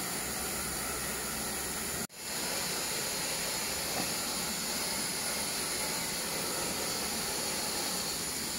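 Steady, even background hiss with no distinct events; it cuts out for an instant about two seconds in, then carries on as before.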